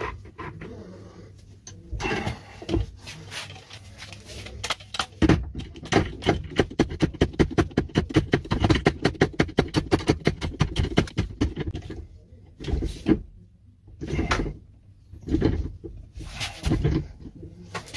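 Hand-pumped hydraulic cutter being worked: a fast, even run of clicking pump strokes lasting about seven seconds, then four slower, separate strokes, as its jaws press on a padlock's hardened steel shackle without cutting it.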